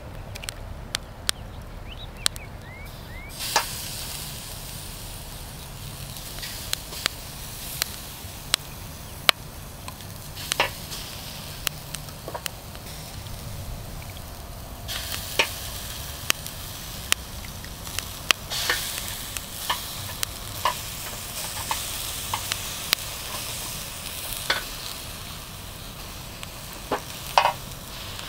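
Skewered octopus and shallots being laid on a wire grill rack over hot charcoal: a sizzling hiss, thicker in the second half, with many sharp clicks and taps of the skewers against the rack.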